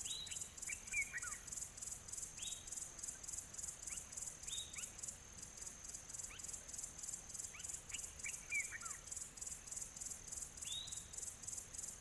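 Bush ambience: a steady high insect chorus pulsing about four times a second, with scattered short, down-slurred bird whistles and chirps.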